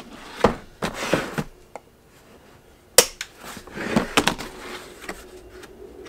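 Handling noise from a black plastic hard tool case and a folding knife being moved about on a bench mat: a few scattered knocks and rubs, with one sharp click about three seconds in.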